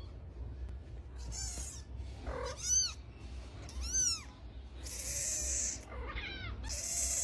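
Kittens meowing: a string of short, high-pitched meows that rise and fall in pitch, the loudest about two and a half and four seconds in. Two longer bursts of hissy noise come in, one about five seconds in and another near the end.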